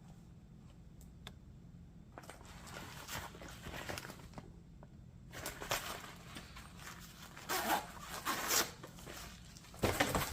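Zipper of a small fabric backpack being pulled, in about four separate pulls, with handling rustle in between.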